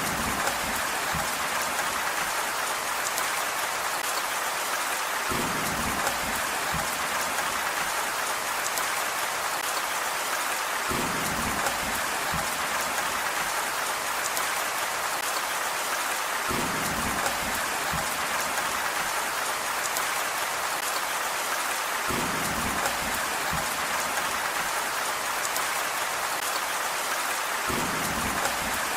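Steady rain falling as an even hiss. Short low rumbles with a few sharp drips recur about every five and a half seconds.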